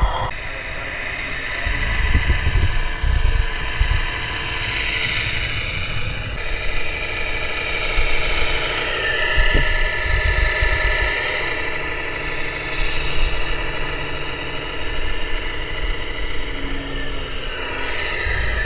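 Model-truck engine sounds from the sound units of 1/14-scale RC trucks, running steadily with a mechanical whine. A stronger whine comes in and holds for about two seconds near the middle, over an uneven low rumble.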